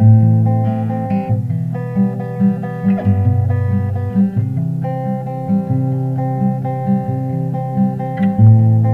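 Background music: a plucked acoustic guitar playing a steady picked pattern over a bass line.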